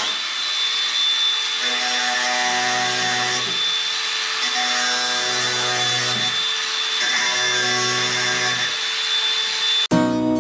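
Cordless angle grinder cutting off rusted steel screw stubs on top of the floor joists, a steady high whine over the grinding, with lower tones coming and going every second or two as the disc bites. Guitar music cuts in just before the end.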